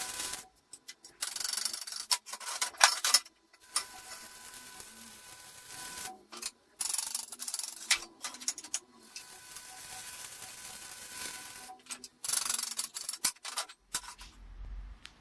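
Workshop power tool running in several short bursts, a steady motor whine under harsh rasping noise, starting and stopping abruptly with brief silences between.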